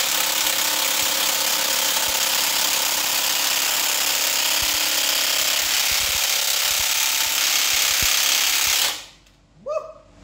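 A power tool running loudly and steadily with a dense rattling hiss, used on an engine being taken apart, then stopping sharply about nine seconds in. A short squeak follows.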